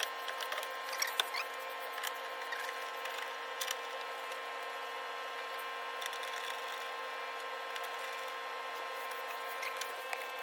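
A steady hum with several fixed tones, and a few small, sharp clicks and taps of handled parts, grouped near the start and again near the end.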